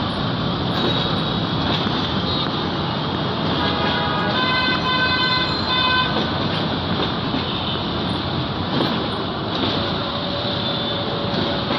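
Steady rumble of a passenger train rolling slowly through a rail yard, mixed with traffic noise. A horn sounds steadily for about two seconds, about four seconds in.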